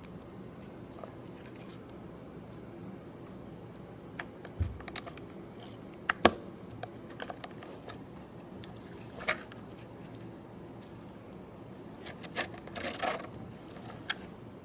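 Slime being handled, squished and poked, giving irregular sticky clicks and small pops. They come in scattered clusters with pauses between, over a steady low hiss; the sharpest pop comes a little after the middle.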